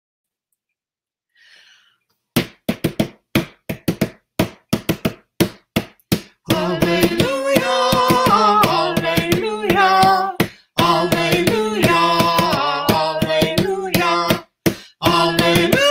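A woman and a man singing a hymn together, heard over a video call. The singing starts about two seconds in with a few seconds of short, broken-up fragments, then runs on as steady held notes stepping from pitch to pitch.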